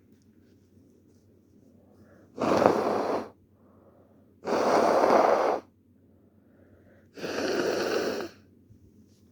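A person blowing their nose hard into a tissue three times. Each blow is a loud, noisy blast lasting about a second, a couple of seconds apart.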